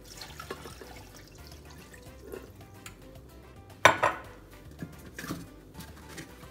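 Water poured from a glass measuring cup into a blender jar of cooked tomatoes, followed about four seconds in by a sharp clack of glassware knocking, with a smaller knock just after and another a second later. Faint background music runs underneath.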